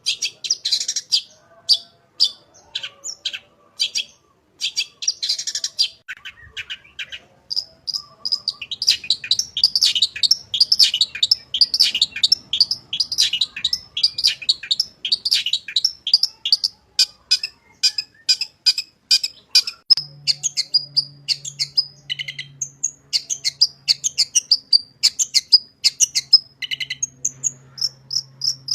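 Long-tailed shrike (cendet) singing a full mimicry song: sharp, high, separate notes at first, then from about eight seconds a fast, dense run of chattering notes.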